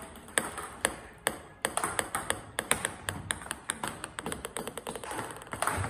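Table tennis balls clicking: a few even bounces about half a second apart, then a dense run of quick clicks from ball and racket strikes and bounces.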